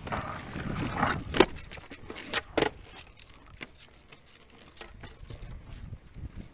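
Skateboard wheels rolling on concrete, with several sharp clacks of the board hitting the ground, the loudest about one and a half and two and a half seconds in.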